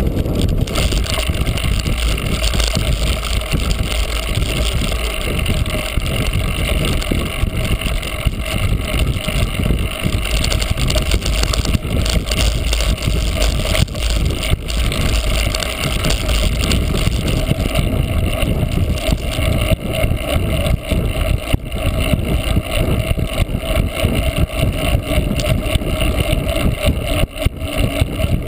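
Wind buffeting the microphone over the steady rumble and rattle of a cyclocross bike riding over rough ground, with frequent small knocks and jolts.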